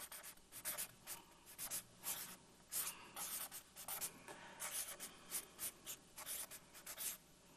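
Marker writing on flip-chart paper: a run of short, separate pen strokes, about three a second, as words are written out.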